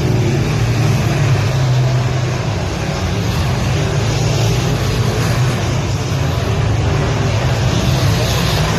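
A field of semi late model dirt-track race cars racing around the oval, their V8 engines making a loud, steady drone.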